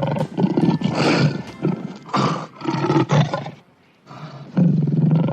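Lion roaring: a string of deep, rough roars and grunts, with a short pause about three and a half seconds in.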